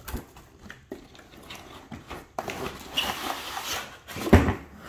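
Cardboard box being handled and shifted about: scraping and rubbing of cardboard with small knocks, and a heavier thump near the end.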